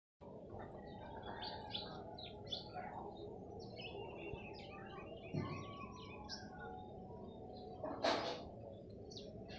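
Small birds chirping, many short, quick chirps overlapping, over a steady low background noise. About eight seconds in there is a brief, louder noisy burst.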